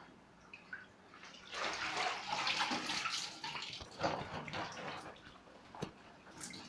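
Water sloshing and splashing in a plastic bucket as a pair of jeans is dunked and lifted out. It starts about a second and a half in and dies down after a few seconds, followed by a sharp knock near the end.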